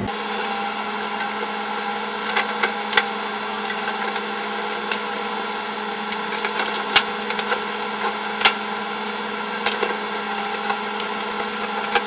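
Fast-forwarded sound of screws being driven with a hand screwdriver into a steel computer case to fix the power supply: scattered sharp metallic clicks and ticks over a steady hum, with two louder clicks around the middle.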